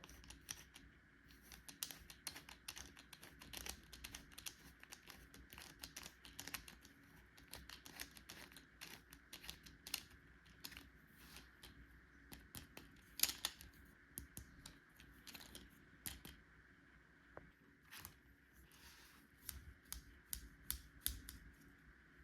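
Small hard plastic pieces of a toy tool set being handled and set down: irregular clicks and taps, several a second, with a few sharper knocks.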